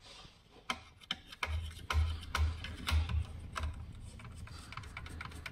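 A screw being driven into a plastic body panel to pull it closed: a run of irregular sharp clicks and rubbing creaks, with several low thumps in the middle.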